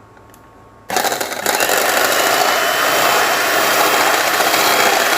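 Electric mixer switched on about a second in and running steadily at speed, beating whipping cream.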